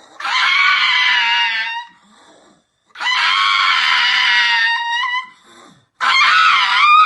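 Three long, loud, high-pitched screaming cries, each lasting about one and a half seconds with short gaps between them; the third wavers up and down in pitch.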